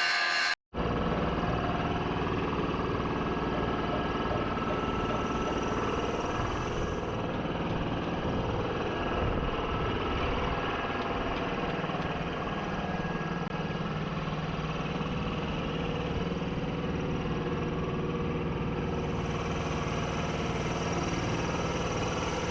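Engine idling steadily, with a brief total dropout just after the start.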